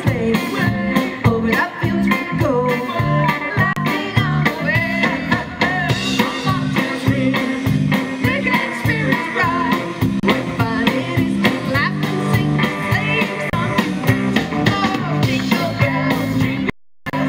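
Live rock band: a woman singing over electric guitar and a drum kit with a steady beat. The sound drops out completely for a split second near the end.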